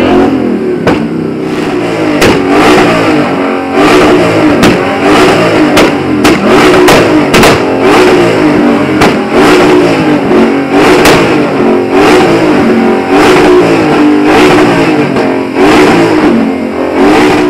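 Ford Mustang V8s, a Shelby GT500 among them, revved hard over and over, the engine note rising and falling about once a second, with sharp exhaust pops and cracks between the revs.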